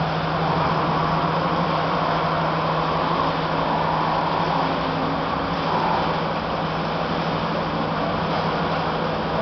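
5-axis CNC router running as it machines foam: a steady low hum under an even hiss, with a fainter higher tone that drifts slightly in pitch.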